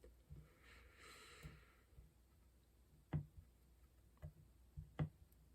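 Faint, scattered small clicks and taps of hands and a tool working on a floppy drive's mechanism, the two sharpest about three and five seconds in, with a short soft hiss about a second in.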